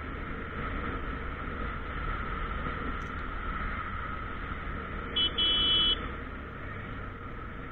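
Motorcycle riding with steady engine and wind noise. About five seconds in, a buzzy electric horn beeps twice, a short blip then a longer blast of about half a second.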